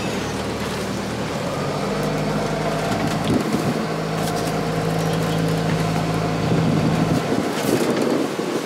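Sailboat's auxiliary engine running steadily as the boat motors in toward a marina. Its note changes about a second and a half in and again near the end.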